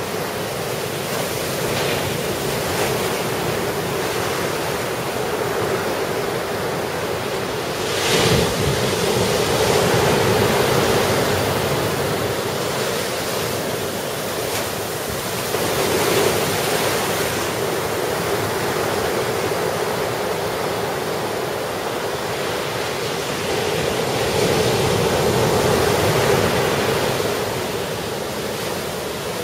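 Ocean surf from a typhoon swell: waves breaking and washing in as a continuous rush that swells and fades several times, with a sudden loud crash about eight seconds in.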